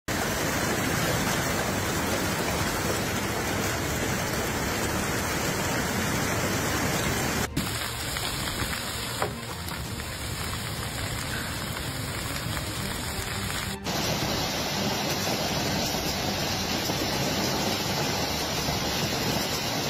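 Heavy hail mixed with rain pelting down, a dense steady hiss and patter, across three stretches that change abruptly about seven and fourteen seconds in. One sharp knock stands out about nine seconds in.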